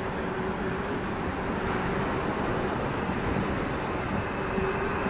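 Double-deck electric regional train rolling slowly past along a station platform: a steady rumble of wheels on rail with a faint motor hum that grows clearer near the end.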